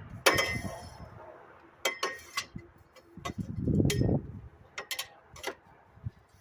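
Scattered metallic clicks and knocks of hand tools being worked on an old lawn mower, about half a dozen sharp hits at uneven spacing, with a longer low rumble about four seconds in.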